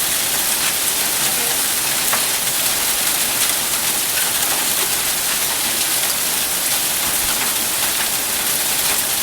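Storm downpour of rain with hail pelting steadily: a loud, even hiss with many small sharp impacts scattered through it.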